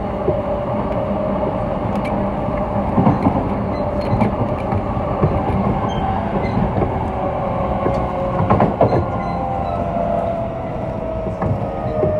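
Running sound inside a JR East E233-0 series electric train, recorded in motor car MoHa E232-239, with its MT75 traction motors and Mitsubishi IGBT-VVVF inverter. There is a steady rumble with faint motor tones that drift slowly, and now and then short knocks from the wheels on the rails.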